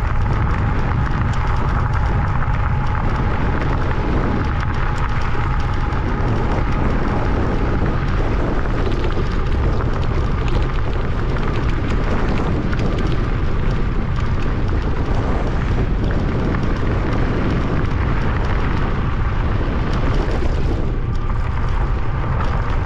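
Wind rushing over the microphone while riding an e-bike, a steady loud rumble, with a faint steady whine underneath.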